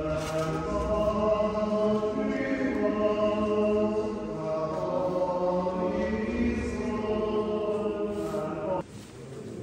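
A slow chant of long, held sung notes that change pitch only now and then, cut off abruptly near the end.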